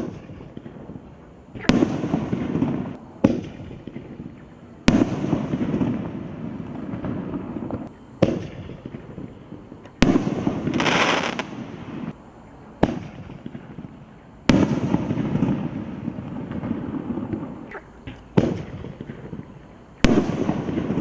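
Phantom Fireworks G-498 Neon Blaze aerial shots firing one after another, five in all, a few seconds apart. Each is a lighter thump at launch, then about a second and a half later a sharp bang and a second or two of crackle as the shot bursts.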